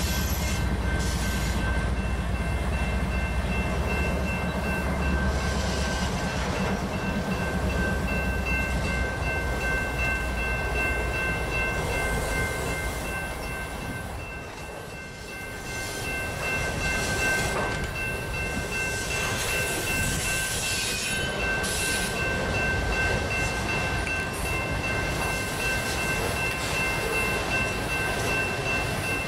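Freight train of autorack cars rolling past steadily, its wheels rumbling on the rails, with a steady high ringing tone above the rumble. The rumble dips briefly about halfway through.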